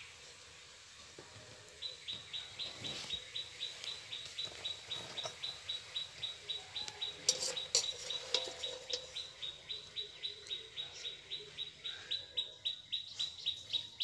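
A bird chirping over and over, about four short, high chirps a second, starting about two seconds in. A sharp click sounds about halfway through.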